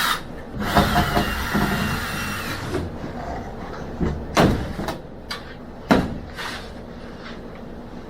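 Demolition handling noise: scraping and rustling of building material, then a few sharp knocks, the loudest two about four and a half and six seconds in.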